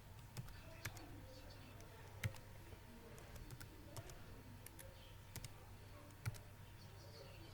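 Computer keyboard being typed on: single keystrokes clicking at an irregular, unhurried pace, over a low steady hum.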